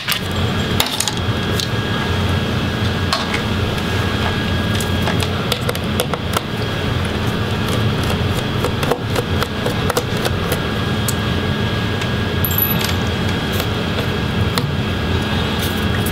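Scattered small clicks and taps of a Phillips screwdriver and fingers handling the plastic case and drive parts of an opened laptop, over a steady background hum.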